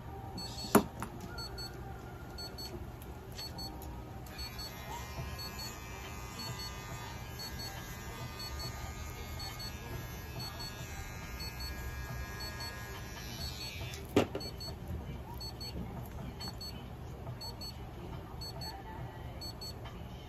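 A soft electronic beep repeats steadily over a low, even hum. Two sharp clicks stand out, one about a second in and one about two-thirds of the way through.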